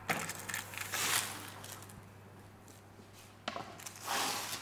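Baking paper rustling and crinkling as a freshly baked focaccia on a wooden peel is handled, in a few short bursts, the last and loudest near the end.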